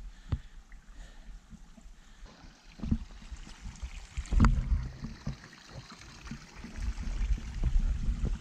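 Footsteps crunching and scuffing on a rocky dirt trail, as scattered clicks and knocks. Under them runs an irregular low rumble that swells about halfway through and grows louder near the end.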